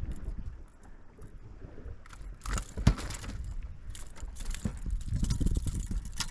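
Wind rumbling on the microphone, with light clattering and rustling from handling in the boat and one sharp knock about three seconds in.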